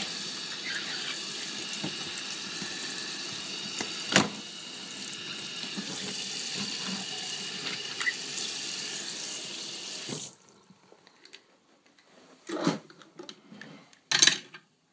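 Tap water running steadily into a basin, with a sharp click about four seconds in; the water stops abruptly about ten seconds in, leaving a few light knocks.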